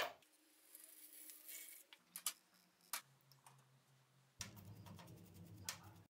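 Small workshop handling noises: a sharp clack as a metal baking tray is set on the bench, a few light clicks of small metal parts going into the liquid-filled tray, then from about four seconds in a toothbrush scrubbing a part with rapid scratchy ticks.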